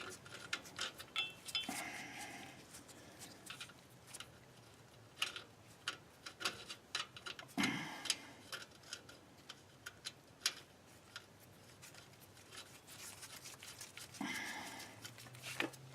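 Light, irregular metallic clicks and ticks of a socket wrench on the axle retainer bolts of a Ford 8-inch rear axle being tightened, some in short runs, with pauses between.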